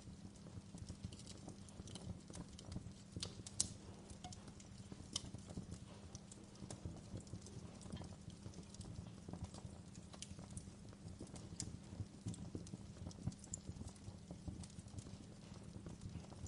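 Wood fire crackling in a fireplace: irregular sharp pops and snaps over a steady low rumble, with one louder pop about three and a half seconds in.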